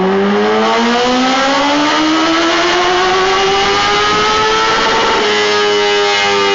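Motorcycle engine accelerating, its pitch rising steadily for about five seconds, then holding steady near the end.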